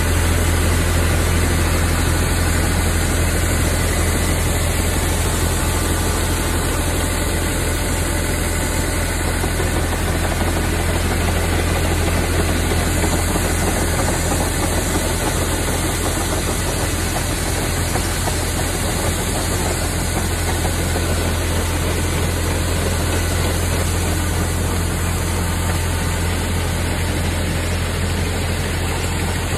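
Harvest machinery engine running steadily: a deep, even drone with a constant rushing noise over it.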